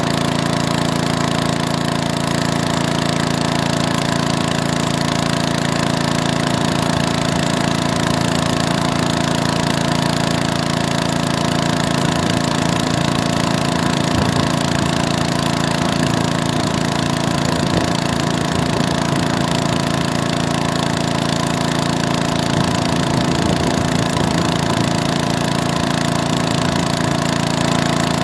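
A small engine running steadily at constant speed, without letting up.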